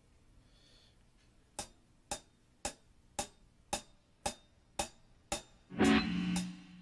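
A drummer's count-in: eight even, sharp clicks about two a second, then the rock band comes in together with a loud, held chord of guitar and keyboard near the end.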